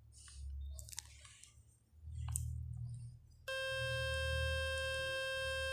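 A phone speaker playing a steady buzzing tone from a speaker-cleaning website, meant to shake dust and water out of the speaker grille. It starts abruptly about three and a half seconds in, after a few faint taps.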